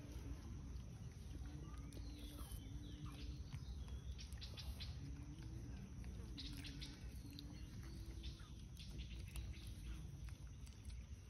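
Faint high animal chirps and squeaks, clustered about two seconds in and again about six seconds in, over a steady low rumble and a short low hum that comes and goes every second or so.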